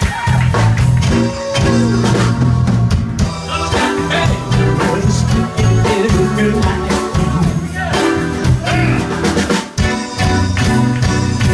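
Live band playing a rock song: drum kit keeping a steady beat under a strong bass line, electric guitar and keyboard, with a voice singing at times.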